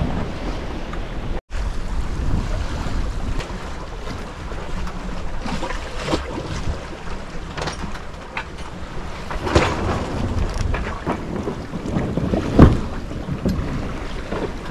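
Sailboat under way in a breeze: wind buffeting the microphone over water rushing and splashing along the hull, with a few short louder thumps, the loudest near the end.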